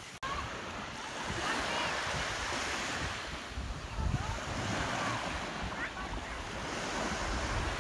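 Small waves breaking and washing up on a sandy beach, with wind buffeting the microphone.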